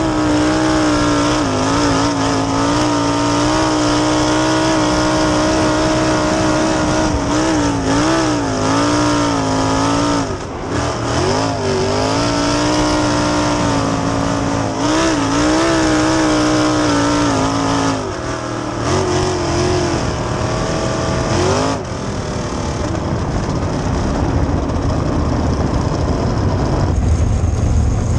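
Onboard sound of a 410 sprint car's V8 engine at racing speed on a dirt track, its note held high and steady with brief throttle lifts and blips, several in a cluster about a third of the way in and again about two-thirds through. In the last few seconds the clear engine note gives way to a rougher, noisier sound.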